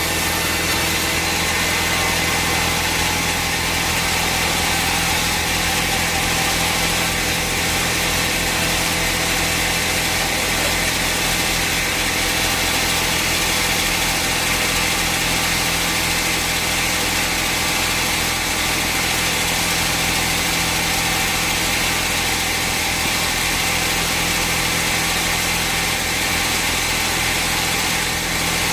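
Sawmill machinery running steadily: an engine or motor drone with a constant pitch and level, and no change in load.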